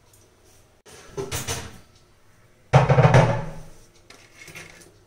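A spoon stirring melted dark chocolate in a ceramic bowl set in a steel double-boiler pot: a short scraping burst, then a sudden loud knock against the bowl about two and a half seconds in that rings and fades over about a second.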